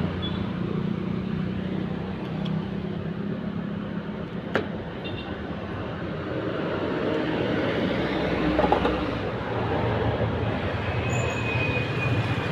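Steady motor-vehicle engine noise that swells and fades, with one sharp click about four and a half seconds in.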